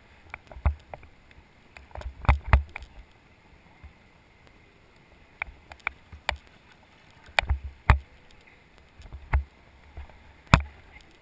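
Irregular knocks and thumps around an inflatable river raft, about a dozen scattered through, over faint water noise.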